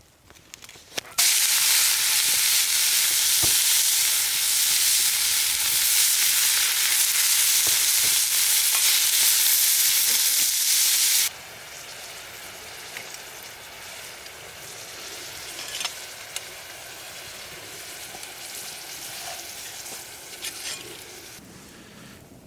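Food frying in a hot pan: a loud sizzle starts suddenly about a second in. About halfway through it drops abruptly to a quieter sizzle with scattered pops and crackles.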